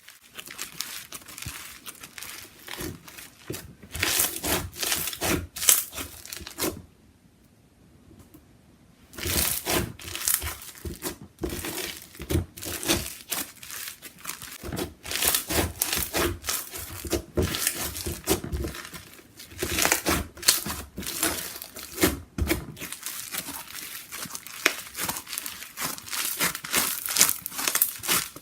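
Crunchy slime being squeezed and pressed by hand, giving runs of crackling crunches and pops, with a brief pause about seven seconds in.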